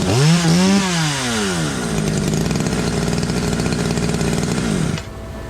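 Ported two-stroke Poulan Predator chainsaw with a custom welded exhaust, just out of a cut: it revs up and down twice, drops to a steady idle, then stops near the end. The carburettor is being tuned.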